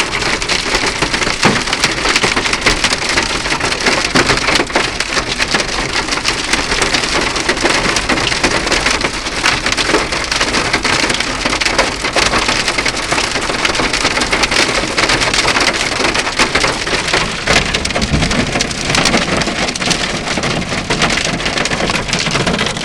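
Hail and heavy rain pelting a car in a dense, unbroken patter of hard hits that keeps steady throughout.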